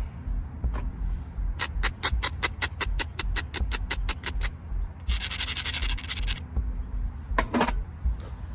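Knapping tools working the edge of a limestone point: a quick run of sharp clicks, about six a second, then a scrape lasting over a second, then a couple more clicks near the end.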